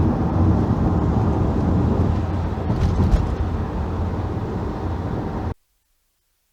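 Steady engine and road noise inside a car driving at highway speed, cutting off abruptly to silence about five and a half seconds in.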